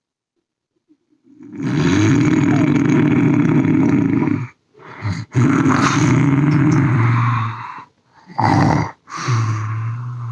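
A person snoring very loudly and raspingly, starting about a second in: two long snores of about three seconds each, then two shorter ones.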